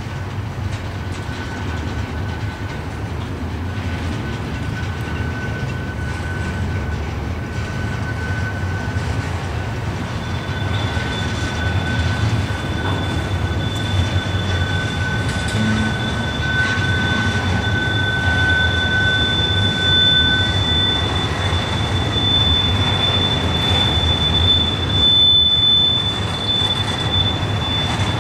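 Double-stack intermodal freight train's well cars rolling past with a steady rumble that slowly grows louder, and wheels squealing in thin steady high tones: one through most of the first two-thirds, and a higher one that joins about ten seconds in and runs on.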